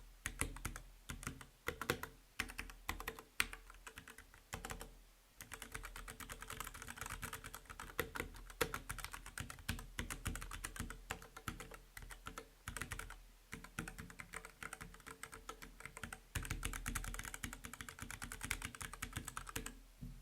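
Typing on a Keychron K6 mechanical keyboard: a quick, continuous run of key clicks with a couple of brief pauses.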